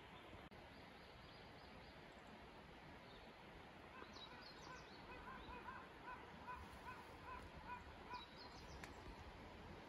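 Faint outdoor ambience. About four seconds in, a bird starts a run of short repeated calls, roughly three a second, with a few higher chirps, and stops after about four seconds.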